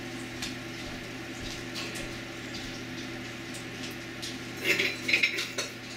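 Steady low electrical-sounding hum in a small room, with a few brief louder sounds about five seconds in.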